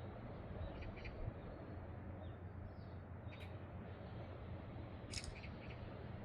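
A few short, high bird calls, the loudest a quick double call near the end, over a steady low rushing noise from the shore.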